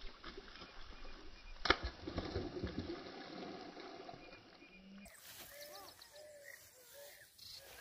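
A sharp click about two seconds in, then a hooked fish splashing and thrashing at the water's surface for a couple of seconds. From about five seconds in, a bird calls repeatedly in short, arching notes.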